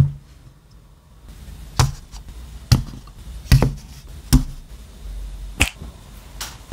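Small plastic figure pieces (cockpit seats and action figures) being set down one after another on a cloth-covered table: about seven separate short knocks, roughly one a second, the first the loudest.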